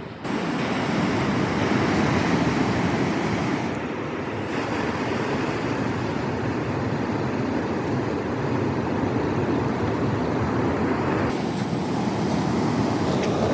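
Ocean surf breaking, with wind blowing across the microphone: a steady rushing noise that jumps louder just as it begins.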